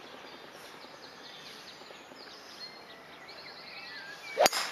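Golf driver swung from the tee: a quick swish of the club, then the sharp crack of the clubhead striking the ball, near the end. Before it, a quiet open-air background with faint bird chirps.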